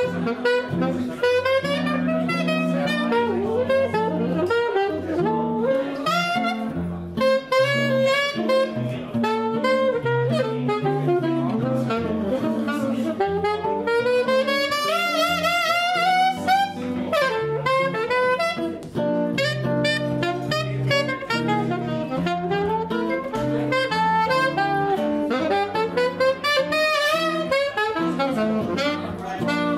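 Alto saxophone playing a jazz solo over guitar chords, with a fast rising run about halfway through.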